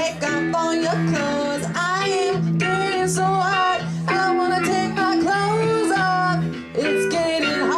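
Live music on a hollow-body electric guitar played through an amplifier: held single notes that slide in pitch, over a low note repeating about twice a second.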